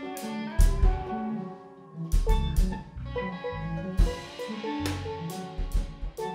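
Band music: a drum kit with kick and cymbal hits under sustained pitched instrument notes, briefly thinning out about a second and a half in.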